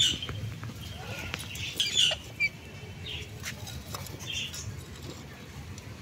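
Rose-ringed parakeets feeding at a bowl of seeds: short, scattered squawks, loudest right at the start and about two seconds in, with light clicks of beaks and feet on the bowl.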